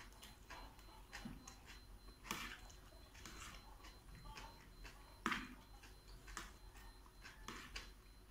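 Faint eating sounds of fried flat rice noodles (kwetiau goreng) being chewed, with a handful of short clicks of fork and spoon on the bowl, sharpest about two and five seconds in.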